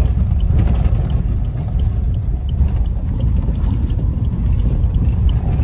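A car driving over a rough dirt forest track, heard from inside the cabin: a steady low rumble of engine and tyres.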